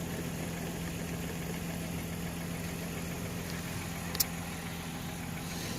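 Steady low mechanical hum, with one short sharp click about four seconds in.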